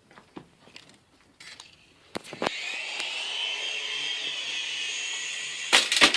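Small electric motors and rotor blades of a toy remote-control helicopter spinning up with a steady high whine about two seconds in, after a few light clicks, ending with a few sharp knocks near the end.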